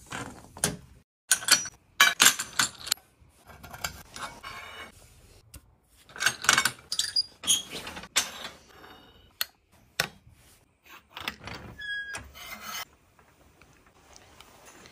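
Irregular bursts of scraping and clattering from steel conduit being handled and worked in a hand-lever conduit bender, with sharp knocks and a couple of short metallic rings.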